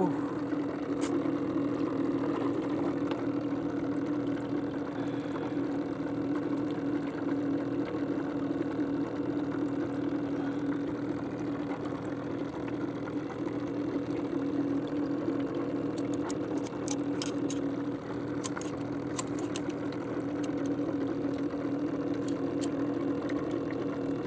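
A small engine running steadily at idle, an even hum that does not change. In the second half, sharp clicks and rattles of fishing tackle and pliers being handled join it.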